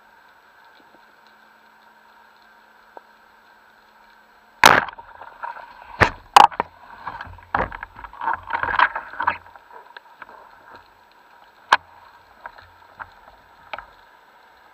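A loud, sharp underwater snap of a speargun firing about four and a half seconds in, followed by several more sharp knocks and a few seconds of knocking and rattling from the spear shaft and the speared fish. Later come a few single clicks over a steady faint hiss.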